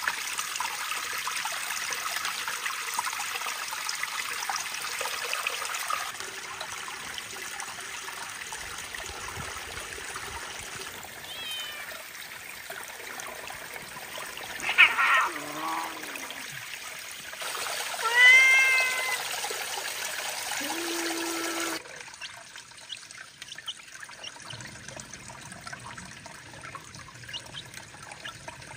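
Spring water trickling and splashing over rocks, with a cat meowing loudly twice in the middle. The water sound drops to a faint trickle about three-quarters of the way through.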